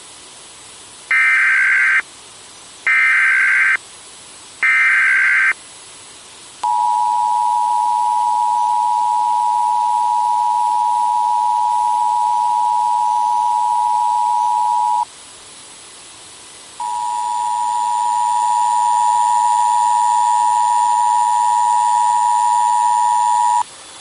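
Emergency Alert System activation: three short warbling bursts of SAME header data tones, followed by the steady two-tone EAS attention signal. The attention signal breaks off after about eight seconds and sounds again after a pause of about two seconds for about seven seconds more.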